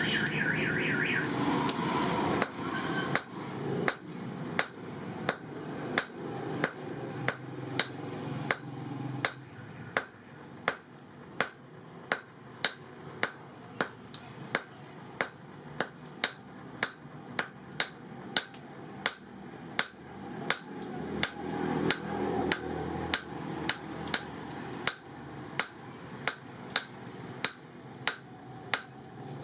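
Hammer blows on leaf-spring steel over an anvil, struck in a steady regular rhythm a little under two a second from about three seconds in.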